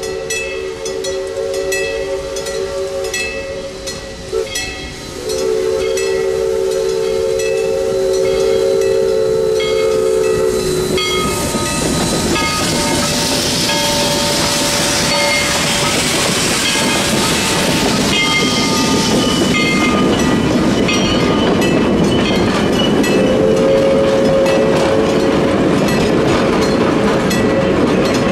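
Columbia River Belt Line #7 'Skookum', a 2-6-6-2T steam locomotive, blowing its chime whistle for a grade crossing in two long blasts, with the crossing-signal bell clanging steadily. About ten seconds in the locomotive passes close with hissing steam and exhaust, and freight cars follow, their wheels clicking over the rail joints.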